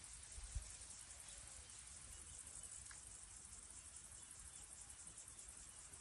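Faint, steady high-pitched chirring of insects, with a single low thump about half a second in.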